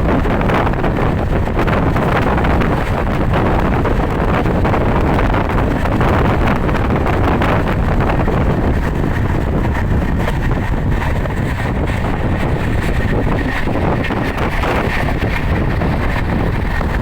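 Steady wind buffeting the microphone of a moving vehicle, mixed with its running and road noise. A faint high steady tone comes in about halfway through.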